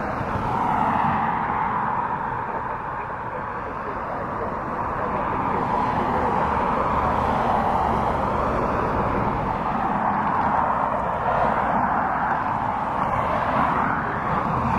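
Boeing 777 freighter's GE90 turbofan engines running at taxi power as the aircraft rolls past: a steady jet roar with a mid-pitched hiss, growing a little louder about five seconds in.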